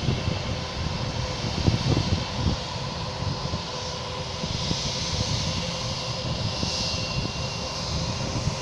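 Airbus A321 airliner's twin jet engines running at low taxi power: a steady whine over a broad hiss, with an uneven low rumble underneath. The hiss swells midway as the jet turns its engines toward the listener.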